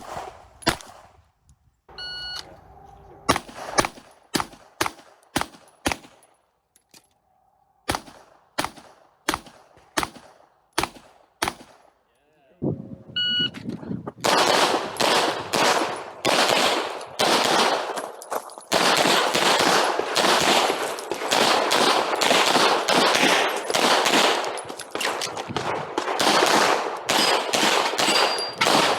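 A competition shot timer beeps, then a 9mm Glock pistol fires single shots spaced roughly half a second to a second apart. About halfway through a second timer beep starts a long string of rapid shots, so close together that they run into one dense, echoing barrage.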